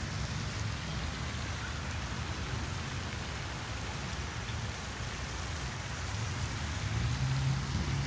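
Steady splashing hiss of a park lake's spray fountain falling back onto the water, like rain on a surface. A low hum swells near the end.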